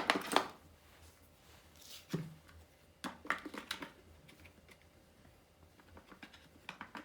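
Irregular small plastic clicks and taps from handling and fitting together the parts of a small Daiso robot vacuum, in a short run near the start, a few around three to four seconds in and again near the end.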